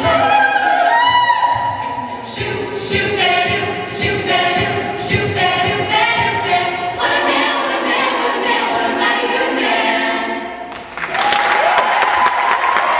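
All-female a cappella group singing the close of a song in several voice parts. About eleven seconds in, the singing stops and audience applause breaks out.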